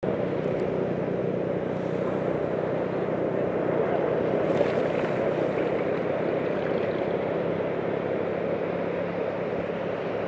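Sea surf washing up a flat sand beach: a steady rush of breaking waves and foam, with a faint low steady hum underneath.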